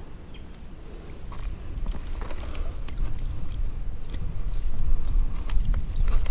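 Rustling and handling noise with scattered small clicks and snaps as someone moves through weeds and dead wood at the water's edge, over a low rumble on the microphone; it gets louder about two seconds in.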